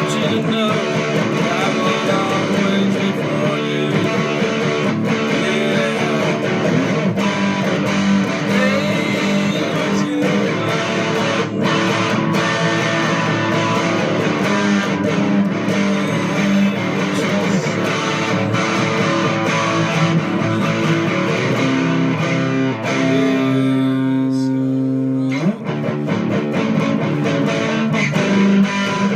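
Guitar-led band music with electric guitar and bass. About 22 seconds in, one chord is held on its own for roughly three seconds, then the full band comes back in.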